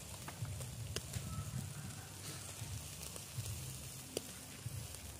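Goat udder pieces sizzling over a grill, with scattered sharp crackles and pops of fat, over a steady low background rumble.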